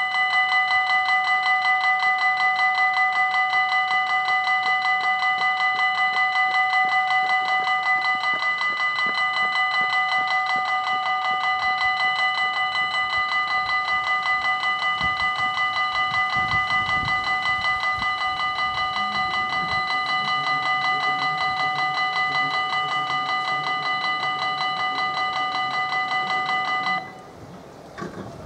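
Level crossing warning bell ringing with fast, even strokes and a steady pitch, warning road users that a train is approaching. It stops suddenly about a second and a half before the end, once the barriers are down. A faint low hum rises underneath it in the second half.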